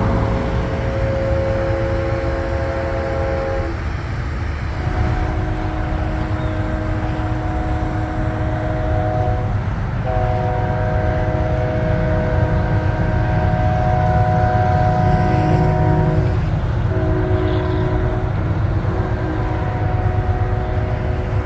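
Distant locomotive air horn sounding a multi-note chord in separate blasts. The last blast of one sequence ends a few seconds in, then a new sequence sounds long, long, short, long, the grade-crossing warning pattern. A steady low rumble runs beneath.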